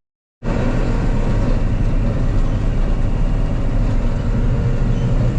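Combine harvester running at a steady working speed while harvesting wheat, a continuous low engine drone. It starts just after a brief silence.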